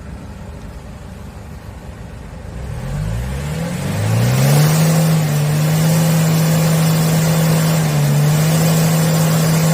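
Tow truck's diesel engine idling, then revved up over about two seconds and held steady at high revs, with one brief dip late on, as the accelerator is pressed for an exhaust smoke check.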